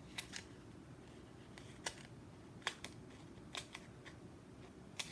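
Light handling of paper card pieces and adhesive pads on a craft table: about eight short, sharp clicks and rustles, spaced irregularly, over a faint room hum.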